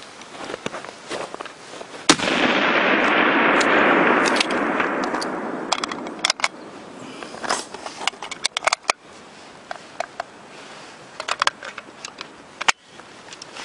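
A single shot from a Savage F/TR target rifle about two seconds in. Its blast rolls away over about three seconds, followed by scattered light clicks and knocks.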